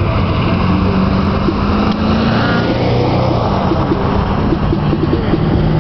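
Road traffic on a busy multi-lane street: cars and a van driving past, a steady noise with a low engine hum under it.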